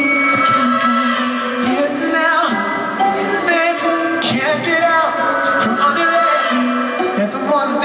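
Live rock band playing through a concert PA, with a male lead vocal singing long, wavering notes over electric guitar.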